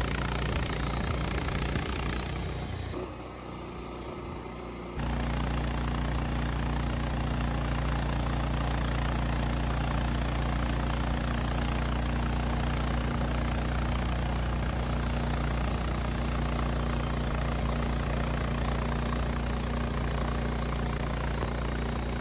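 Wood-Mizer LT15 Start bandsaw mill running steadily, its motor driving the band blade through a cedar log. The sound drops abruptly and comes back about two seconds later, a few seconds in.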